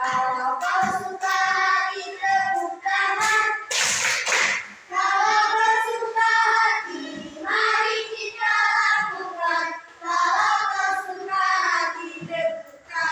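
Young children singing a song together, with a short noisy burst about four seconds in.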